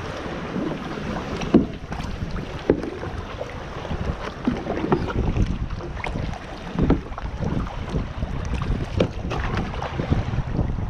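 Kayak paddle strokes in the water, a sharp splash or knock every second or two, over steady wind rumble on the microphone.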